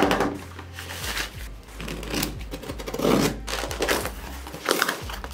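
Packing tape being peeled and ripped off a cardboard box, with the cardboard flaps scraping and rustling, in a run of short scratchy bursts.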